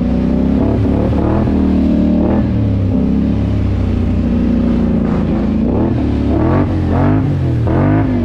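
ATV engine running and being revved over and over, its pitch climbing and dropping with the throttle, with several quick revs in the last few seconds.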